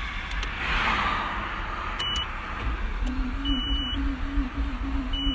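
Starter motor of a Nissan Skyline GT-R (R32) with a blown RB26 twin-turbo straight-six, cranking slowly and weakly from about three seconds in. It makes a whirring that rises and falls, 'wiin wiin', and the engine never catches: a labouring starter that is the sign of serious internal engine damage. Short high beeps repeat about every second and a half.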